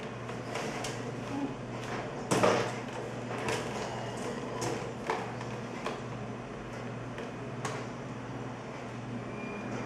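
Plastic parts of a Britânia Mega Turbo 40 Six desk fan being handled and worked apart: irregular clicks and knocks, the loudest about two and a half seconds in, over a steady low hum.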